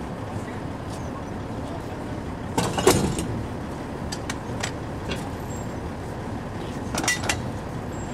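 Steady drone of drilling-rig machinery, with sharp metal clanks from pipe handling at the rotary table: a loud cluster about three seconds in and another about seven seconds in.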